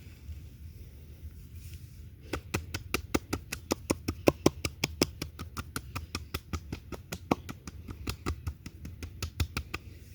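Rapid, even hand slaps on oiled skin, as in massage tapotement, about six or seven a second, starting about two seconds in.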